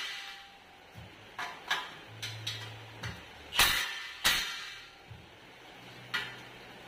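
Metal knocks and clinks of a wrench and steel parts being handled while a tree shaker is assembled: a string of sharp separate knocks, the two loudest about three and a half and four and a quarter seconds in. A faint low hum comes and goes behind them.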